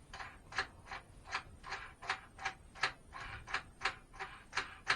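Ratchet wrench clicking in an even rhythm, about three clicks a second, as a nut is run down onto a bolt with a washer and lock washer.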